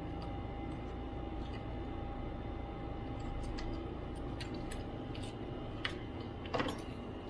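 Scattered light clicks and ticks of a precision screwdriver working the many tiny keyboard screws out of a MacBook Pro A1278, with a sharper click about six and a half seconds in, over a steady background hum.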